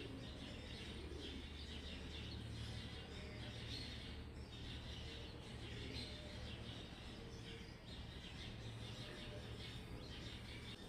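Faint chirping of birds, many short high calls overlapping, over a steady low hum.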